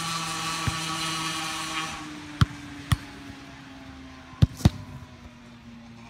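A steady droning hum with several overtones that slides slowly lower. Four sharp thuds cut through it, two about two and a half seconds in and two more about four and a half seconds in.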